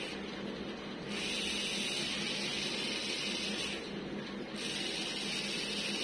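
Small plastic hobby DC gear motor spinning a wheel, a steady gearbox hum with a higher whir that comes in about a second in, dips briefly around four seconds, and returns. The whir rising and falling is the motor's speed changing as the joystick is moved.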